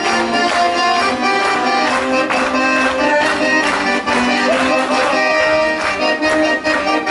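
Two accordions playing a Polish folk song tune.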